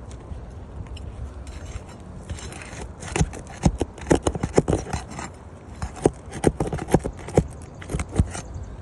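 Roofing tool working under asphalt shingles to pull stubborn high nails: a rapid, irregular run of sharp metal clicks, knocks and scrapes starting about three seconds in, over a low rumble.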